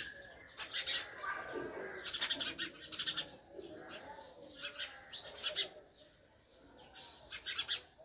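House sparrow chirping: short, high chirps repeated quickly in clusters, with brief pauses between them.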